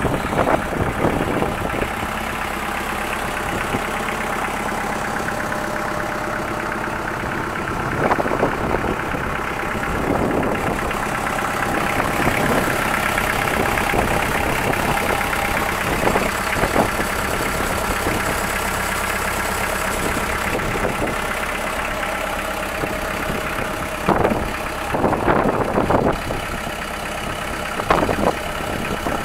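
Kubota L2501 tractor's three-cylinder diesel engine idling steadily, with a few brief louder bumps along the way.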